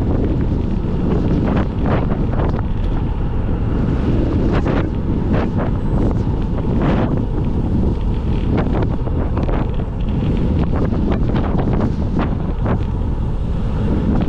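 Loud, steady wind buffeting on the microphone of a camera carried on a moving bicycle: a heavy low rumble with frequent brief crackles.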